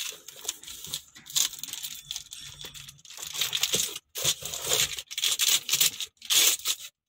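Clear polythene wrapping crinkling in irregular bursts, with short gaps, as hands handle it and pull it from the car bumper guard strips.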